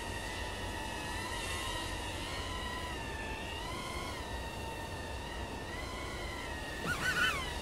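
Miniquad FPV drone's brushless motors (DYS 1306 4000KV on three-blade 3-inch props) whining steadily, the pitch drifting up and down with throttle. Near the end, a few quick throttle blips make the whine warble sharply up and down and briefly louder.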